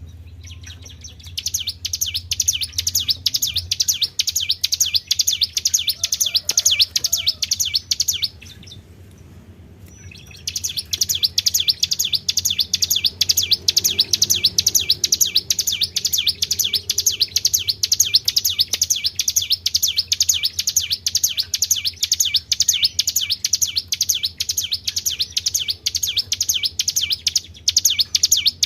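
A small songbird singing a high, rapid chirping trill of short repeated notes, about five a second, with a break of about two seconds about eight seconds in, over a faint low hum.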